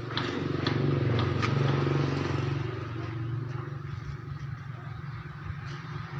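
An engine running steadily with a low hum, loudest in the first couple of seconds and then easing off, with a few sharp metallic clicks near the start.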